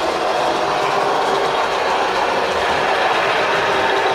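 Gauge 1 model diesel locomotive and its coaches running on the track: a steady mechanical running hum with the wheels rolling over the rails.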